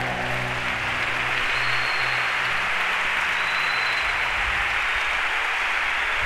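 Audience applauding steadily at the end of a flamenco guitar piece, while the guitar's final chord rings out and fades over the first couple of seconds.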